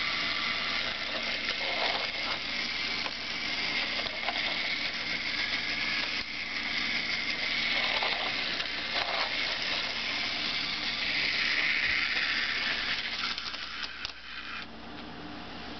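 Tomy Big Loader battery-powered toy train running along plastic track, its small electric motor and gears giving a steady buzzing whine with the rattle of the wheels. Near the end the sound drops and becomes quieter as the train is handled.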